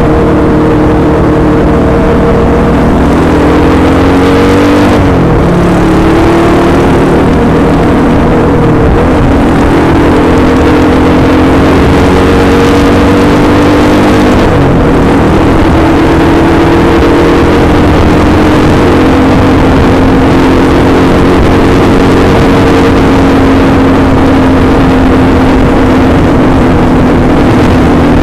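Honda Win 100's single-cylinder four-stroke engine running under full throttle, its pitch climbing, dropping sharply at gear changes about five seconds and about fourteen seconds in, then running steadily at high speed. A constant rush of wind noise lies under it.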